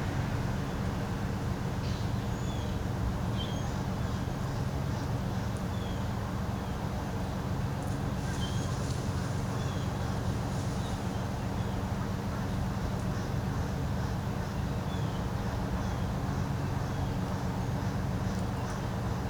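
Steady drone of a small airplane's engine that holds an even level throughout, with short high bird chirps repeated about once a second over it.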